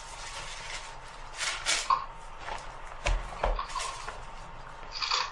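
Paper rustling and soft handling knocks as pages are leafed through, with two low thumps a little past the middle.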